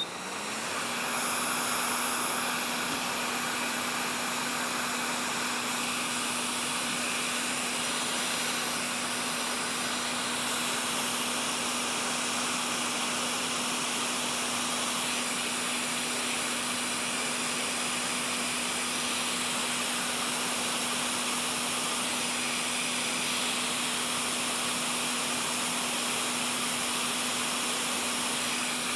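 Hot-air rework station blowing, as used to heat a motherboard's CPU socket: a steady hiss of air with a constant low hum from the blower fan, coming up to full flow in the first second or two.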